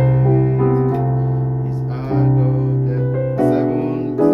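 Keyboard with a piano sound playing a run of full sustained chords, a new chord struck about every second or two, in the manner of a turnaround chord progression.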